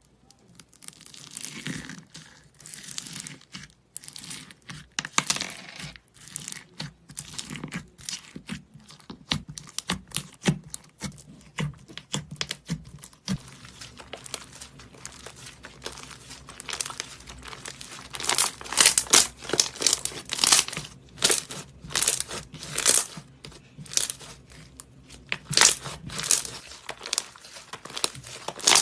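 Slime being squeezed and stretched by hand, giving dense runs of short crackles, louder from about two-thirds of the way in.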